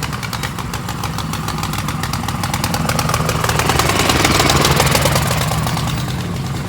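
An engine running steadily with a fast, even pulse. It grows louder toward the middle and eases off again.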